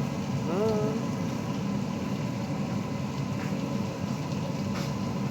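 A steady low hum from a running machine, with a short rising pitched sound about half a second in.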